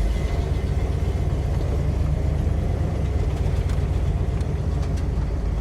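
1969 Ford Mustang Shelby GT500's 428 Cobra Jet V8 running steadily, a low rumble heard from inside the cabin while the car is driven gently.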